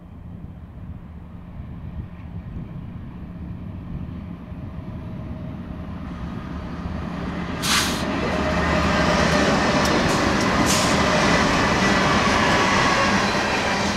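BNSF diesel-hauled freight train approaching: the locomotive engines' low drone grows steadily louder. From about eight seconds in the rush of wheels on rail joins it, with two sharp bursts of hiss.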